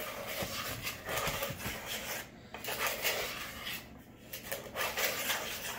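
Spatula stirring a dry flour mixture in a plastic mixing bowl, scraping against the bowl in repeated strokes with short pauses between.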